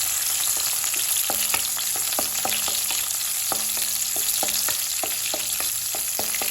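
Chopped garlic and green chillies sizzling in hot oil in a kadai while being sautéed, with a spatula knocking against the pan in quick repeated clicks.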